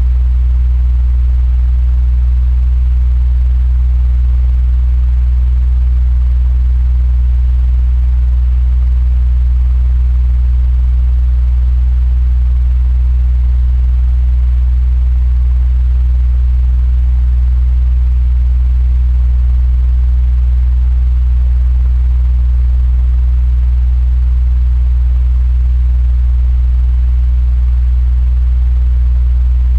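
Electric fan running steadily: a loud, unchanging low hum with a faint airy hiss above it.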